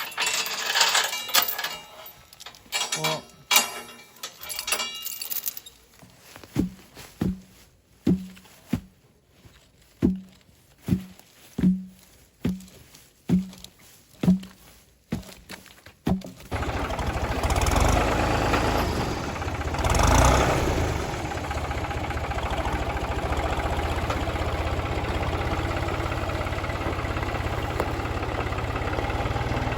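A few knocks, then a string of about a dozen short low pulses, then a tractor engine starts a little past halfway and runs at a steady idle, swelling briefly once a few seconds after it catches.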